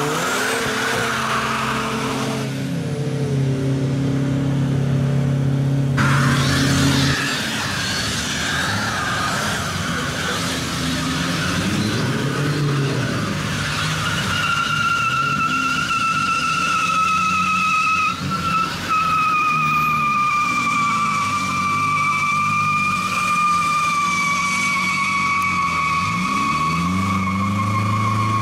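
Car engines revving hard, then a burnout: from about halfway in, a long steady tyre squeal, slowly falling in pitch, over an engine held at high revs.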